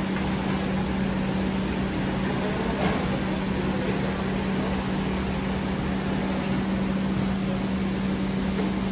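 Steady drone of a commercial kitchen's exhaust hood fan running, with a constant low hum under a hiss. A single light knock about three seconds in.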